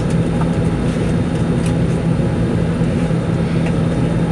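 Steady cabin drone inside an Airbus A320 before departure: an even rush of air with a constant low hum.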